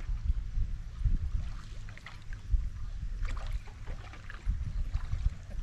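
Paddles splashing in the water beside a homemade boat made from two halved plastic drums, in scattered short splashes over a low, uneven rumble.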